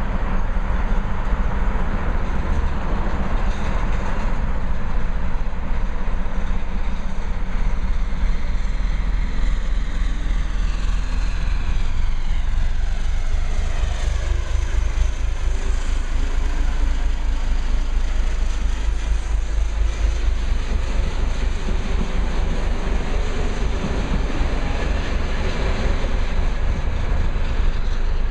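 Czech Railways class 749 'Grumpy' diesel locomotive, with its six-cylinder diesel engine, working under load as it pulls a train away from a standstill. Its engine note sweeps in pitch as it passes close by about halfway through, then the coaches roll away.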